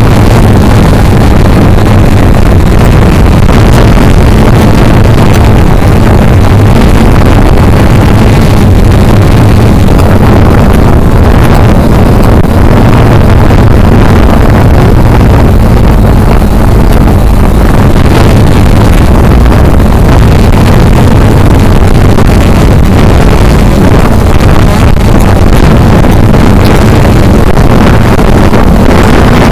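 Cheerson CX-20 quadcopter's motors and propellers humming loud and steady, heard from the camera on board the flying drone, with wind noise on the microphone.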